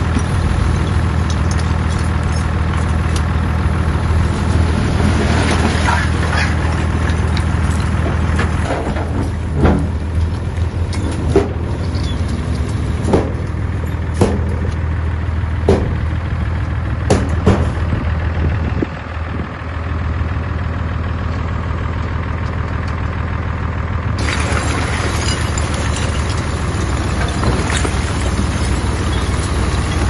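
Bulldozer's diesel engine running steadily under load, with a run of sharp metallic clanks and knocks in the middle as it works through stone.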